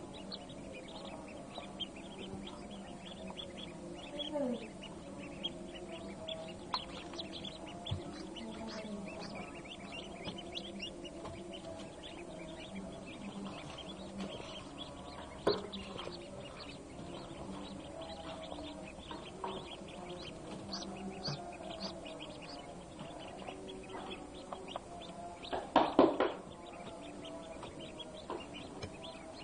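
Many newly hatched Peking and hybrid ducklings peeping continuously, with many short high chirps overlapping. A steady low hum runs underneath, and there is one louder call near the end.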